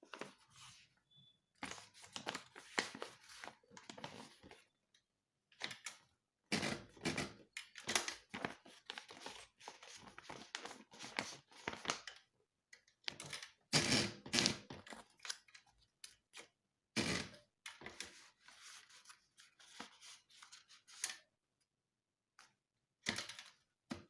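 Sheets of paper rustling and sliding as they are handled and fed into the carriage of a Facit manual typewriter, with occasional knocks and clicks from the carriage and platen. The sounds come in uneven bursts with short pauses, the loudest about 14 seconds in.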